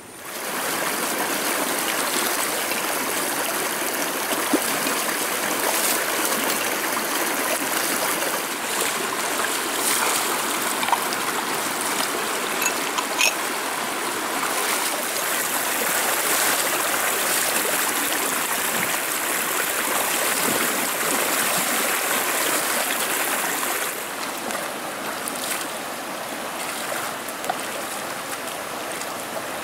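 Shallow river water rushing steadily over stones, with a few short sharp knocks or splashes; it eases slightly near the end.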